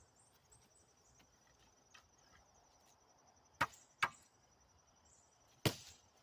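Three sharp knocks, two close together about three and a half seconds in and a louder one near the end, over faint, steady, high-pitched insect chirping.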